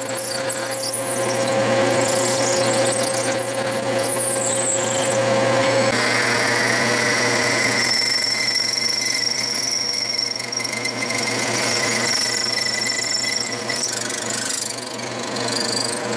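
Metal lathe running while a twist drill in the tailstock chuck bores into a spinning cast-iron wing nut, over a steady motor hum. The drilling gives a steady tone that jumps to a higher pitch about six seconds in, as a larger drill cuts.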